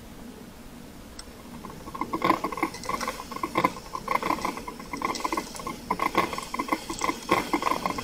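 Drip-coffee side of a Krups 985 Il Caffè Duomo combination coffee maker heating its water: after about two seconds of near quiet, irregular gurgling, popping and spitting start up and keep on as the water comes to the boil and begins to brew.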